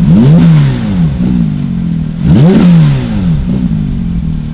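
Porsche 992 GT3's 4.0-litre flat-six, breathing through a Fi Exhaust valvetronic catback with its valves closed, blipped from idle twice, about two seconds apart. Each rev rises and falls quickly, and the engine then settles back to a steady idle near the end.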